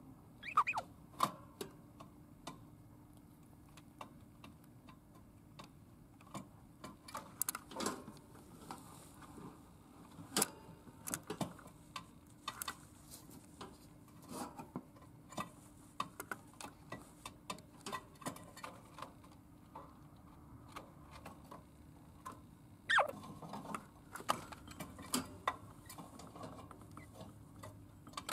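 Lutino budgerigar making irregular soft clicks and ticks, with two short falling chirps, one right at the start and another about three-quarters of the way through.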